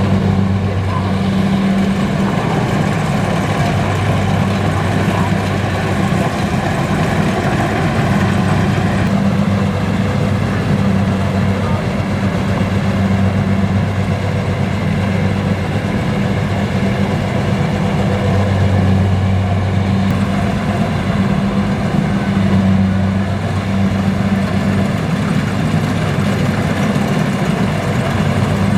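Kubota DC-70 combine harvester's diesel engine running steadily, its low hum swelling and easing every few seconds.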